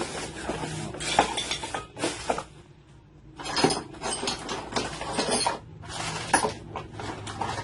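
Metal parts clinking and rattling as they are handled and fitted, with a short lull about three seconds in: the chainsaw adapter's bar, chain and fittings being worked onto a hand-held angle grinder.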